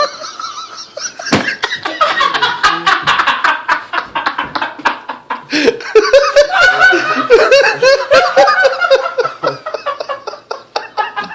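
Young men laughing hard and continuously in rapid pulsing bursts, with many sharp clicks and slaps mixed in.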